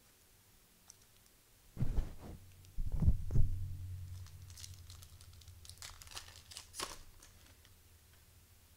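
Two low thumps about two and three seconds in, then the foil wrapper of a trading card pack crinkling and tearing as it is opened by hand.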